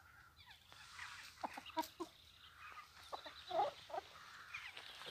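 Chickens clucking: a few short, scattered calls, the loudest about three and a half seconds in.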